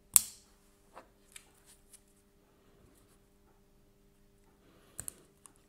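A small folding pocket knife being opened: one sharp metallic click with a short ring just as the blade snaps open, then a few faint ticks of handling and another short click about five seconds in.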